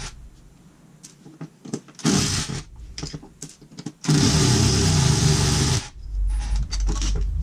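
A small electric motor whirring in two bursts: a short one about two seconds in and a longer one of nearly two seconds about four seconds in. A low rumble follows near the end.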